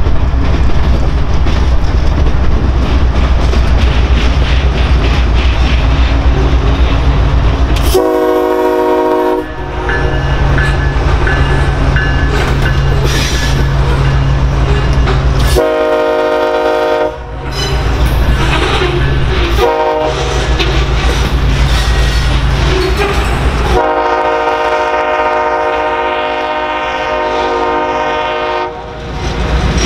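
Freight train with BNSF diesel locomotives passing close by, its engines and wheels giving a steady low rumble. A locomotive horn sounds the grade-crossing pattern over it: two long blasts, a short one, then a final long blast of about five seconds.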